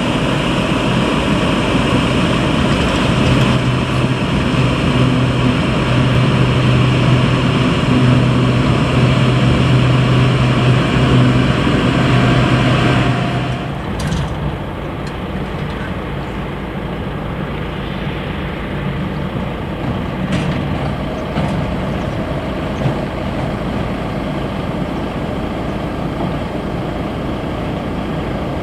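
Heavy earth-moving machinery running steadily with a strong low hum, loud for the first half. About 13 seconds in it drops suddenly to a quieter, more distant engine sound, with a few faint clicks.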